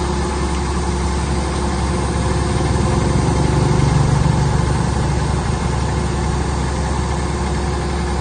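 Engine of a harvesting machine running steadily, growing a little louder for a couple of seconds around the middle.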